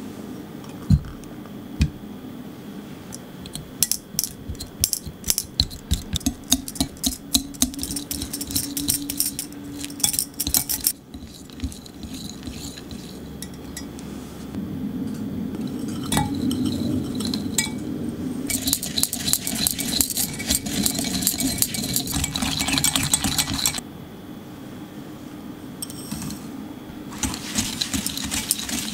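A wire whisk beating soft cream cheese in a glass Pyrex measuring jug. Its wires click and scrape against the glass in quick strokes, in bouts with short pauses. Two knocks come about one and two seconds in.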